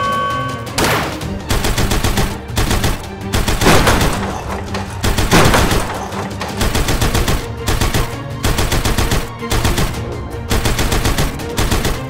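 Toy-battle sound effects: bursts of rapid gunfire repeating every second or so, with a few louder blasts about a second in and around four and five and a half seconds in, over background music.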